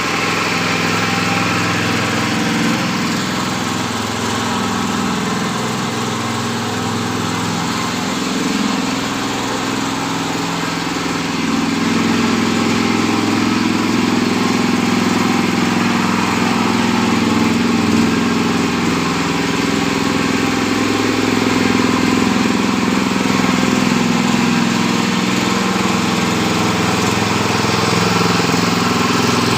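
Small engine of a mini rotavator running steadily, getting somewhat louder about eleven seconds in.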